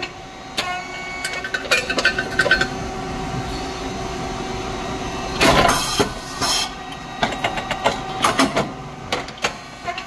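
Rice cake machine running: a steady hum from its motor and pump, with scattered mechanical clicks and knocks, and a short loud rush of noise about five and a half seconds in.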